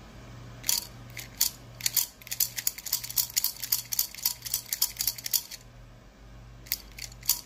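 Plastic toy mallet being handled and swung: a rapid, irregular run of light clicks and taps, with a short pause near the end, over a low pulsing hum.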